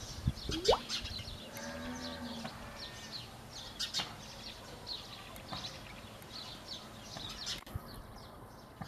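House sparrows chirping, a quick run of short high chirps that thins out near the end. About two seconds in, a livestock animal gives a short bleat.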